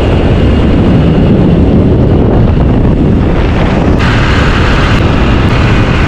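Wind rushing over the microphone of a camera moving with a group of road bikes, a loud, steady rumble. About four seconds in, a brighter hiss comes in abruptly.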